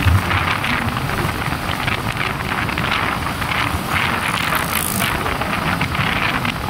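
Motorcycle riding along at steady speed: wind buffeting the microphone over the engine's low rumble and road noise.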